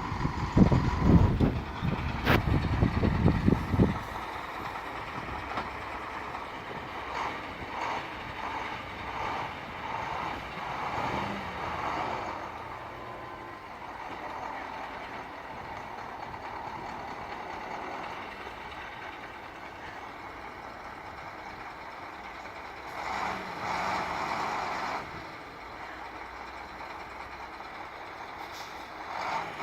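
Heavy machinery running while it moves waste, with a truck's reversing beeper sounding at times. A loud, irregular low rumbling dominates the first four seconds.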